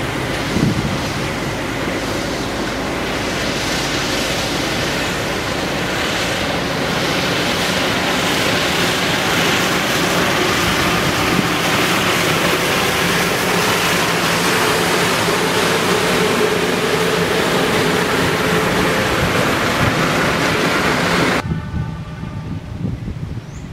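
Orange self-propelled railway track maintenance machine running along the track, its diesel engine drone and rushing wheel and rail noise growing louder as it approaches and passes. The noise drops away abruptly near the end.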